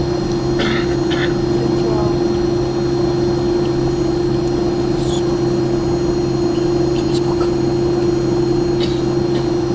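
Steady cabin drone inside an Airbus A300 taxiing after landing, with a constant mid-pitched hum over a low rumble.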